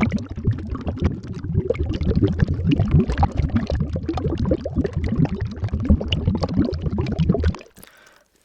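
Underwater bubble sound effect: continuous dense bubbling from air blown through a straw into water, heaviest in the low range. It stops abruptly about seven and a half seconds in.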